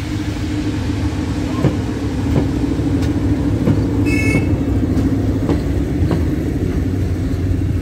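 SM42 diesel shunting locomotive moving slowly past at low speed during shunting, its engine running with a steady hum over a low rumble. Its wheels click repeatedly on the track, and there is a brief high squeal about four seconds in.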